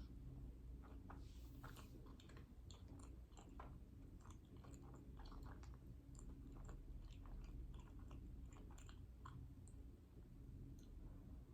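A person chewing dessert, with faint mouth clicks and smacks that come irregularly and thin out near the end, over a low steady hum.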